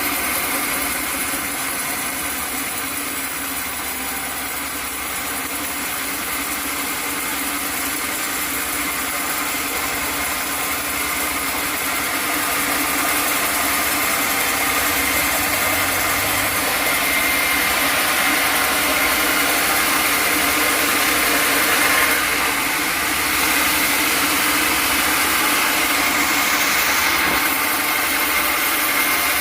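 Sawmill machinery running steadily, a continuous mechanical drone with a high whine that grows gradually louder over the first twenty seconds or so.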